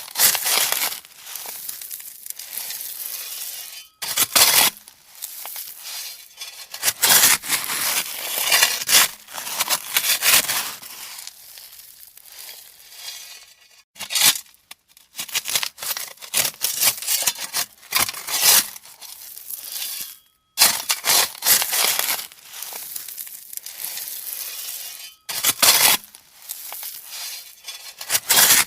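Shovel scraping into and tossing gravel: irregular crunching, scraping strokes with brief pauses between them.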